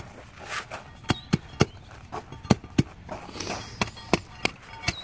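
Hand tamper with a 10 by 10 inch plate tapping down a pea gravel base in short runs of quick, sharp strikes, about three or four a second: a light once-over to compact the base. Twice between the runs there is a brief rustling noise.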